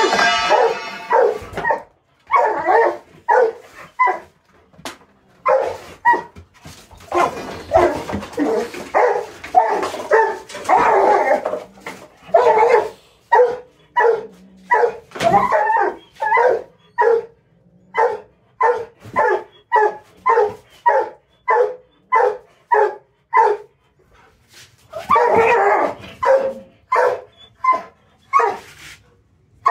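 Rottweiler barking over and over, in bursts of quick barks. In the middle stretch the barks fall into a steady run of about two a second.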